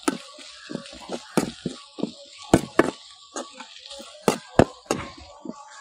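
Perforated steel skimmer spoon clacking and scraping against a metal kadai while sliced onions are stirred as they fry. The clacks come irregularly, two or three a second, over a soft sizzle of hot oil.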